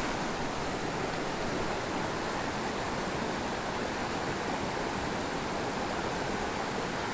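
Small mountain creek rushing and burbling over rocks, a steady hiss of running water close by.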